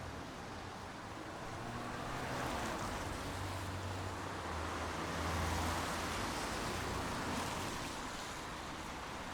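Steady rain, a dense even hiss that swells a little now and then, with a faint low hum beneath it.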